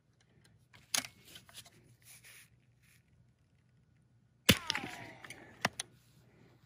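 Gamo Magnum Gen 2 .22 break-barrel air rifle. About a second in the barrel is broken and cocked with a click and a short rattle. A few seconds later the rifle fires with a sharp crack, followed by a ringing that falls in pitch, and another sharp click about a second after the shot.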